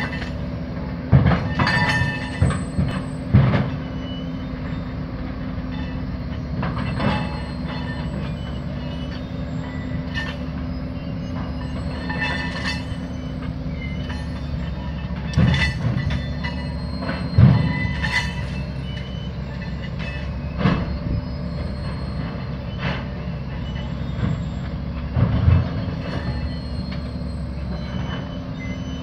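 Steel tie plates clanking and ringing as they are dropped from a maintenance-of-way plate train, in clusters of sharp metal strikes every few seconds, the loudest about midway. Under them runs a steady low drone of the work train's machinery.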